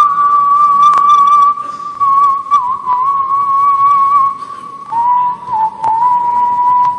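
A man whistling into a stage microphone: one long, nearly steady note with a slight waver, which drops a little in pitch about five seconds in and is then held again.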